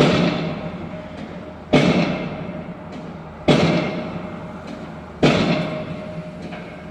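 Pile driver hammering a pile: four heavy blows at a steady beat, about one every second and three quarters, each ringing with a steady tone and fading away before the next.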